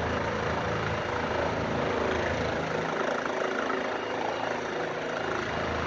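Medevac helicopter's rotor and turbine engine running with a steady, even noise.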